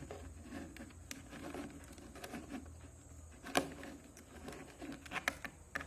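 Light plastic clicks and rustle of a 3×3 Rubik's cube being handled and turned, with one sharper click about three and a half seconds in and a few more near the end.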